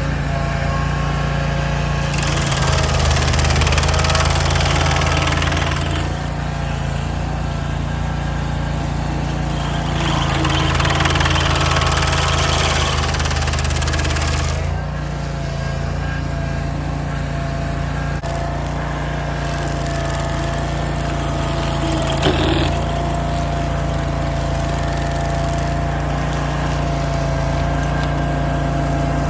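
Barreto SG3630 stump grinder's engine running steadily under load as its cutter wheel grinds into a stump. The grinding noise swells in two long stretches and eases between them, with a single knock near the end.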